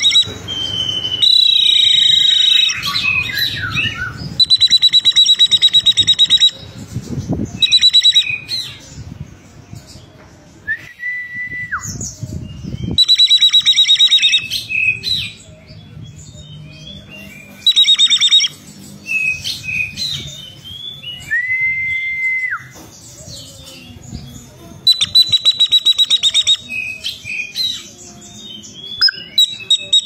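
Caged Oriental magpie-robin singing: loud bursts of rapid, high trills, each a second or two long, repeated every few seconds, with two long, steady, lower whistles in between.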